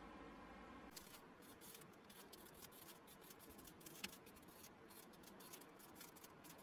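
Faint, irregular scratching of a pen writing on paper.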